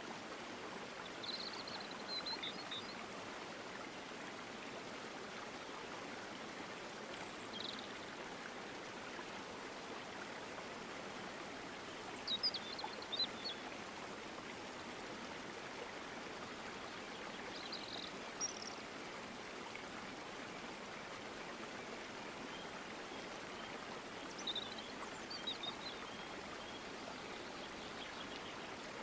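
Steady rush of flowing water, with short high bird chirps coming in a few scattered clusters.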